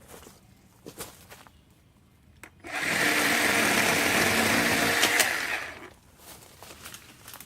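WORX 40-volt battery-powered chainsaw starting up about three seconds in and running steadily for about three seconds, cutting into a thick azalea trunk, then winding down. Light clicks and rustling come before and after it.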